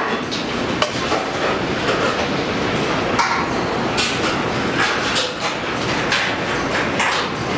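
Car assembly-line factory noise: a steady din of machinery with frequent sharp metallic clicks and knocks.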